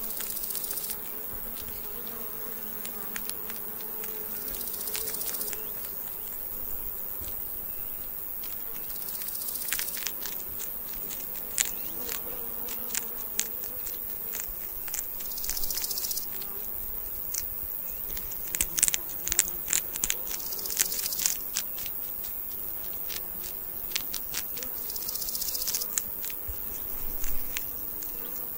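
Baby hedgehogs crunching hard food: a run of sharp clicks and crackles, thickest through the middle. Behind them is a steady high insect buzz, with a brief high hissing burst about every five seconds.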